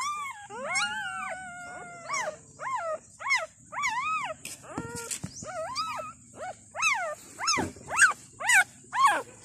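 Two-day-old puppies crying: a string of short, high-pitched squeals that rise and fall, roughly two a second, with one longer, slowly falling cry near the start.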